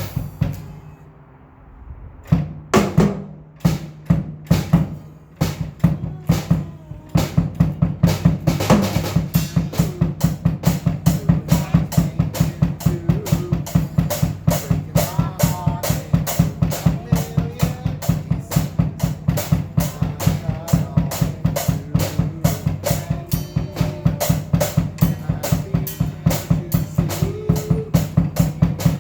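Drum kit played with bass drum and snare: a short lull and a few scattered hits, then a fast, steady beat from about a quarter of the way in. A faint wavering tune sits underneath.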